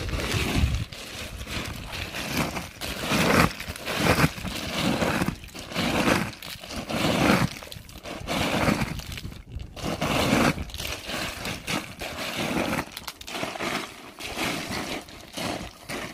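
Loose ice cubes clattering, scraping and crunching as a dog paws and noses through a paddling pool full of ice, in irregular bursts about once a second.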